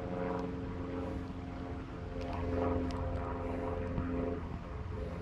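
An engine drones steadily with a low, even hum, swelling a little in loudness about halfway through.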